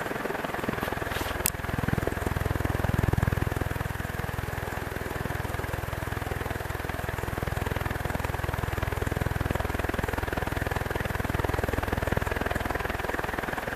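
CEC 48-inch four-metal-blade ceiling fan running: a steady low motor hum under a wash of air noise, with one sharp click about a second and a half in.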